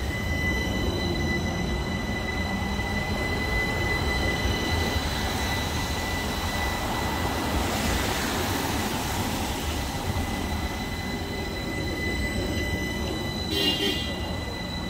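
Modern low-floor trams on the Beijing Xijiao Line moving past at low speed. A steady rail rumble carries a high-pitched squeal held on one pitch throughout, and the noise swells around the middle as a tram goes by. A brief sharp sound comes near the end.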